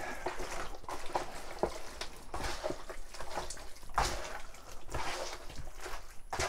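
A hand kneading and rubbing raw chicken pieces coated in wet jerk marinade in a plastic bowl: irregular wet squishes and slaps, with a louder smack about four seconds in and another near the end.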